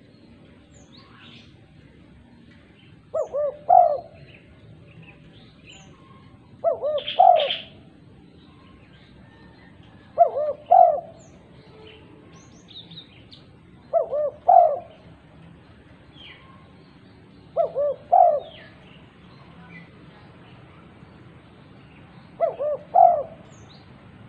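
Female spotted dove cooing: six loud three-note coos, two short notes then a stronger one, repeated about every three and a half to four seconds. Faint high chirps of small birds sound between the coos.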